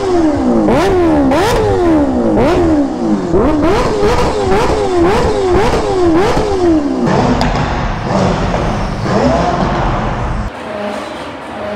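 Kawasaki Ninja H2R's supercharged inline-four engine revved in quick blips over and over, each a sharp climb in pitch falling back, about one to two a second for about seven seconds, then a couple of slower revs before it stops about ten seconds in.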